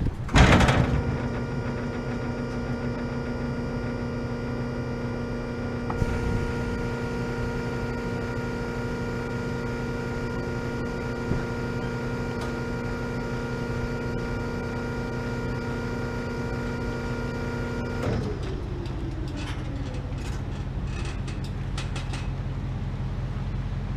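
Electric drive of an automatic retractable bollard running as it lowers: a steady mechanical whine that turns harsher about six seconds in, then winds down with a falling pitch and stops about eighteen seconds in. A sharp knock at the very start and a low rumble underneath throughout.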